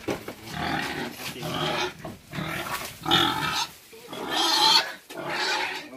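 Pigs squealing and grunting in a run of about six short calls, each under a second long.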